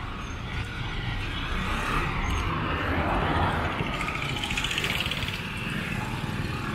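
Street traffic: a vehicle passes close by, its noise swelling to a peak midway and fading again over a few seconds, over a steady low rumble of traffic.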